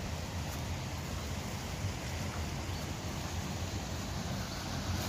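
Steady rushing of water pouring through a small concrete weir, with wind rumbling on the microphone. The water grows louder near the end.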